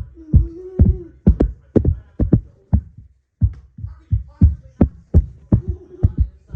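Hands clapping unevenly, about two to three claps a second, with a short break around three seconds in. A voice hums a low note under the claps at the start and again near the end.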